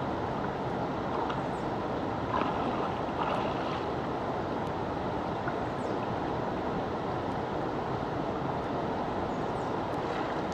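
Shallow river flowing: a steady rush of moving water.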